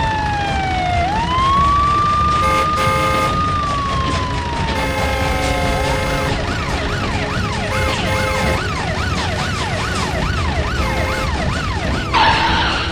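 Cartoon police-car siren effect. A slow wail falls, rises and falls again, then switches about halfway through to a fast yelp of roughly two sweeps a second, over soft background music, with a short burst of noise near the end.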